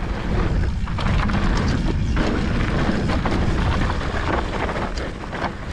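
Mountain bike descending a dusty dirt trail: wind rumbling on the rider's camera microphone, with tyres rolling on dirt and a running clatter of knocks and rattles from the bike over bumps.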